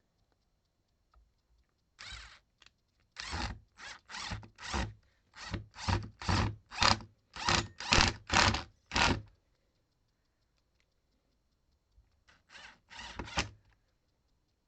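Hand tool scraping in short rasping strokes, about two a second for several seconds, then a pause and a quick burst of four more strokes, as a lock part is worked to fit.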